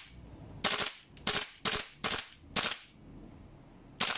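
G&G MGCR 556 gas blowback airsoft rifle, short-stroked, dry-firing on full auto with no BBs: about six short, sharp bursts of the bolt cycling, irregularly spaced, as its gas runs low.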